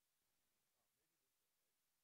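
Near silence: the sound track is all but muted, with only a faint hiss.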